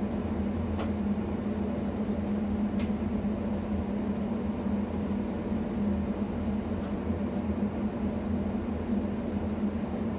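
Steady hum of a ČD class 640 RegioPanter electric multiple unit standing at a station, its onboard equipment and ventilation running, heard from the driver's cab. A few faint ticks sound over it.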